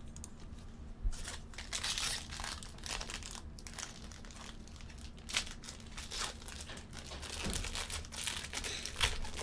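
Foil wrapper of a baseball card pack being torn open and crinkled by hand, a dense run of crackling that starts about a second in.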